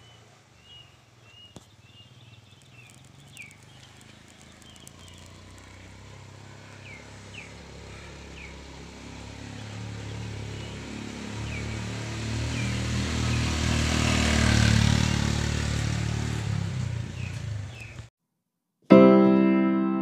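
A motorbike coming up the lane, its engine hum growing louder to a peak about three-quarters of the way through and then fading as it passes. High chirps sound early on, and piano music starts just before the end.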